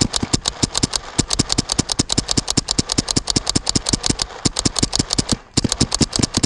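Paintball marker firing rapidly, about eight shots a second, with a brief pause about five and a half seconds in.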